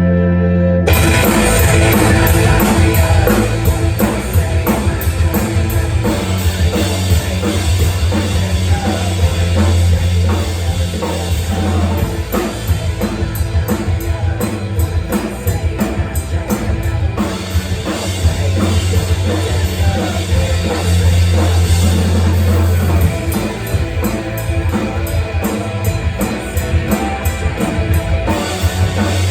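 Rock music with a drum kit and guitar. A held chord in the first second gives way to the full band playing a busy beat.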